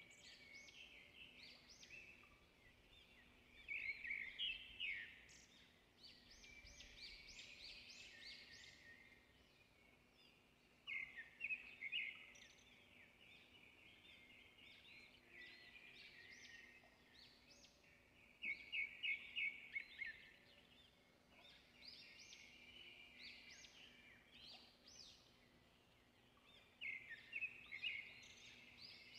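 Faint birdsong: a bird repeating phrases of quick high chirps about every seven seconds, with softer twittering between.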